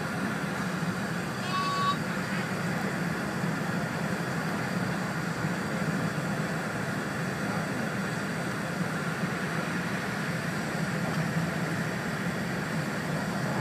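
Steady running noise inside the cabin of an E4 series double-decker Shinkansen travelling at speed: an even low rumble with hiss above it. A short high beep sounds once, about two seconds in.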